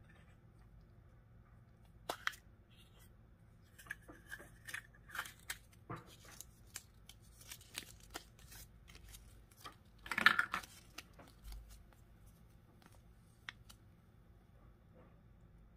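Small plastic surprise-egg capsule being handled and clicked open, then its thin paper leaflet rustling as it is unrolled, with light plastic taps and clicks. A louder crinkle about ten seconds in.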